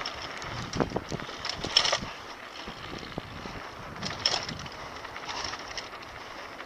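Wind rushing over the microphone of a camera riding down a dirt trail on a downhill mountain bike, with the bike's rattle and sharp knocks over bumps, the loudest knocks about a second in and again about four seconds in.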